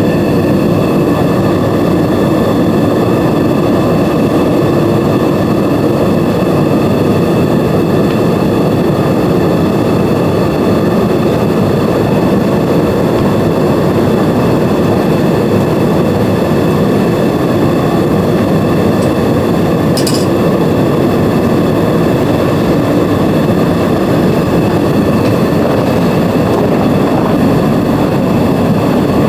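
A Vevor metal-melting furnace's burner running steadily and loudly, a constant rushing noise with faint steady whistling tones above it. A brief click sounds about twenty seconds in.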